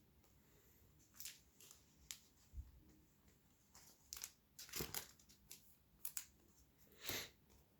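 Faint scattered rustles and light taps of trading cards being handled and shuffled, about half a dozen short, separate sounds, the loudest a little after the middle and near the end.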